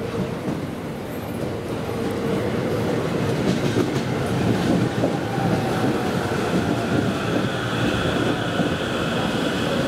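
Sobu Line local electric commuter train pulling in along the platform, its wheels clacking over the rail joints as it slows. Its running noise builds over the first few seconds, and about halfway through a high whine joins in, with a tone that falls slowly in pitch as the train brakes to a stop.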